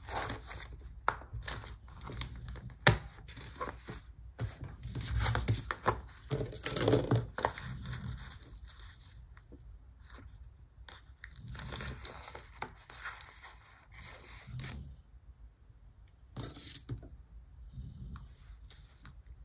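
Paper and sticker-sheet handling: stickers peeled off their backing with short tearing and crinkling sounds, amid irregular rustles and small taps. There is a sharp tap about three seconds in, and the handling is busiest around five to eight seconds in, fainter afterwards.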